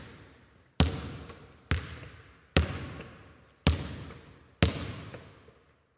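A basketball bouncing slowly on a hard floor, five bounces about a second apart, each with a long echo that dies away.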